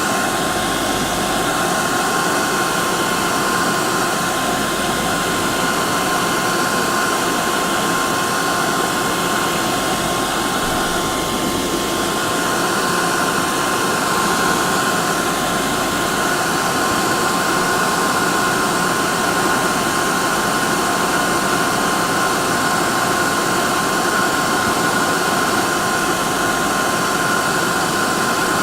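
Hair dryer running continuously: a steady rush of blown air with a constant whine from its motor and fan.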